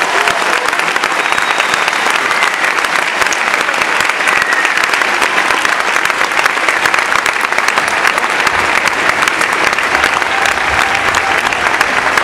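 Audience applauding: steady, dense clapping from a crowd.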